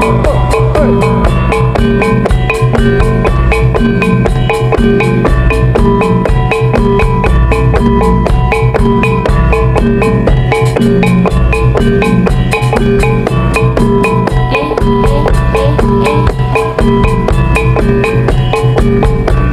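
Jaranan music: struck gamelan metallophones and gongs ringing over kendang drums in a fast, steady beat, played loud.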